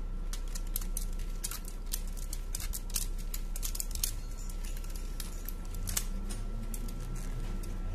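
Rubber bands being stripped off a smartphone by gloved hands: an irregular run of small sharp snaps and clicks, thickest in the first half and again around two-thirds of the way through, over a steady faint hum. The bands had clamped the newly fitted screen to the phone's frame.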